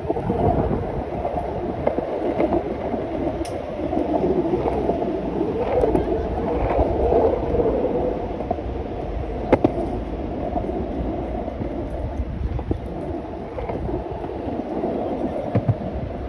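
Wind buffeting a phone's microphone: a steady rumble with a muffled, wavering hum over it. A single sharp click sounds about ten seconds in.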